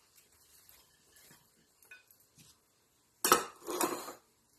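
Diced apple tipped from a ceramic bowl into a large ceramic salad bowl: a short clatter of pieces and bowl clinks about three seconds in, after a few faint clicks of bowls being handled.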